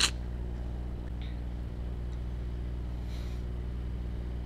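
A steady low hum, with a single sharp click right at the start and faint soft noises about a second in and about three seconds in.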